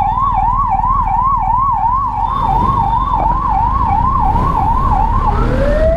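Ambulance siren in a fast yelp, about three sweeps a second, switching about five seconds in to a slow rising wail. Underneath is the low rumble and wind noise of the motorcycle riding just ahead of it.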